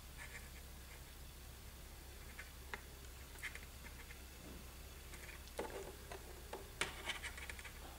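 Faint clicks and taps of thin styrene plastic kit wall panels handled and pressed together by fingers, with a cluster of louder clicks near the end, over a low steady hum.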